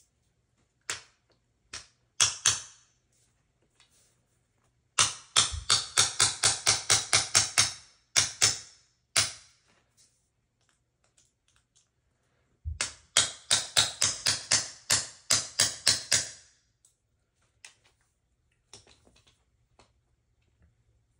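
Rapid tapping of a small hammer driving a roll pin into an AR-15 buffer: two runs of quick strikes, about four or five a second, each lasting around three or four seconds, with a few single taps before, between and after them.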